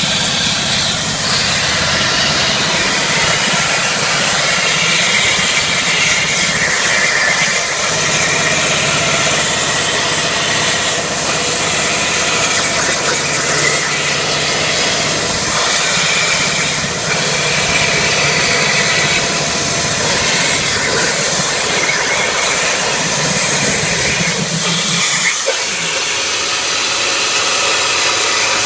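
CNC plasma cutter's torch cutting metal: a loud, steady hiss. Under it runs a machine hum that drops out briefly a few times.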